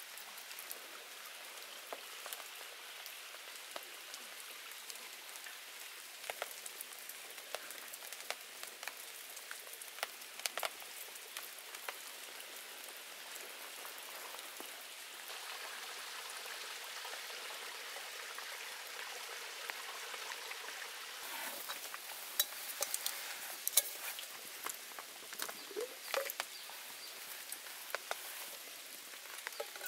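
Rain falling, a steady hiss with the scattered ticks of single heavier drops. The hiss grows a little stronger about halfway through, and the drop ticks come thicker near the end.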